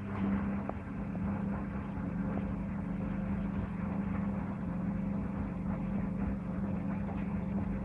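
Servis Gem M310 washing machine starting up suddenly and running with a steady hum and a noisy rush behind it.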